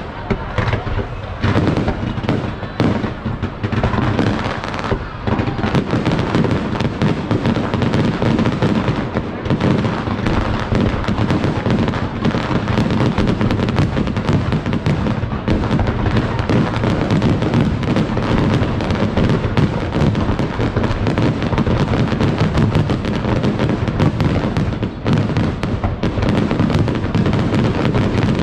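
Fireworks display: a dense, continuous barrage of bangs and crackling, growing thicker and louder a few seconds in.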